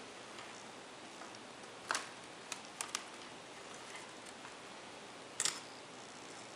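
Sharp clicks and taps of a netbook's display parts being handled: the LCD panel with its metal side brackets lifted in the display lid and a hand tool touching the hinge area. One click about two seconds in, three quick ones about half a second later, and the loudest pair about five and a half seconds in, over a faint steady hiss.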